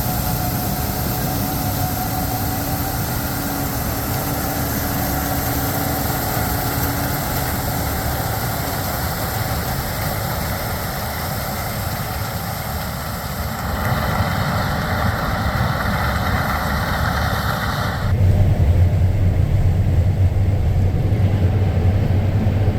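Diesel engines of harvest machinery running steadily. About 14 s in the sound shifts, and about 18 s in it changes abruptly to a louder, deeper hum.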